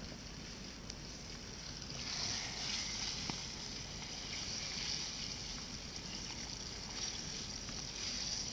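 Steady hiss of trout frying in a skillet over a campfire, growing a little louder about two seconds in, with a few faint crackles.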